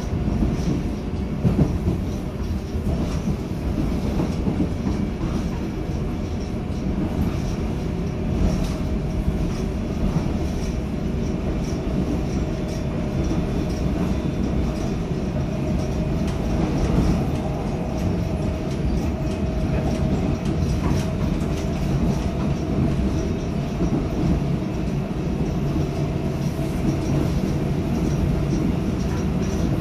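Seoul Subway Line 4 electric train running between stations, heard from inside the passenger car: a steady rumble of wheels on the track with scattered clicks over the rails and a faint steady hum.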